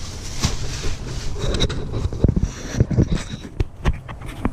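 Close work and handling noise in a truck's engine bay: irregular knocks and scrapes over a steady low hum, with a run of sharper knocks in the second half.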